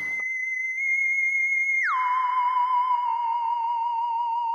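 A single sustained, wavering electronic-sounding tone, held high and then sliding down about an octave a little under two seconds in, where it holds.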